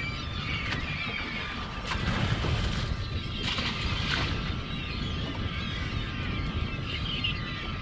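A feeding flock of seabirds calling over the water, many overlapping calls at once, with wind buffeting the microphone.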